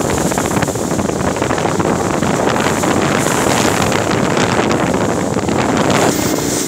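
Jet boat running at speed: a steady, loud rush of wind over the microphone at the bow, mixed with the boat's engine and the water rushing past the hull.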